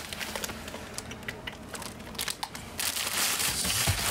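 Clear plastic bag crinkling and rustling as a bagged shirt is rummaged for and pulled out of a cardboard storage box, the crinkling growing louder and denser near the end.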